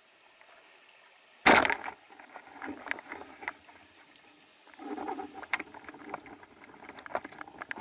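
A sudden loud splash or impact in the water about a second and a half in, followed by scattered clicks, knocks and short bursts of sloshing water.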